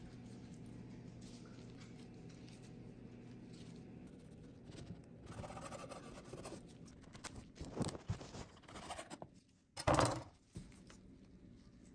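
A kitchen knife sawing through a soft bread sandwich on a wooden cutting board: a run of short scraping strokes after a few seconds of low steady hum. There is one louder, brief knock or rustle about ten seconds in.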